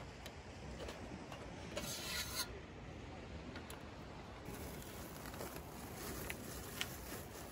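A short rough rubbing or scraping sound about two seconds in, then a few light clicks over a steady background noise.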